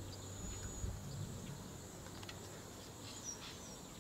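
Outdoor nature ambience: insects keep up a steady high-pitched buzz, and a bird gives a couple of faint short chirps, one near the start and one about three seconds in.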